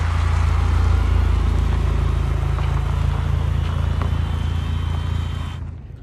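Turbocharged engine and exhaust of a 2017 Chevrolet Malibu running with a steady deep rumble that cuts off suddenly near the end.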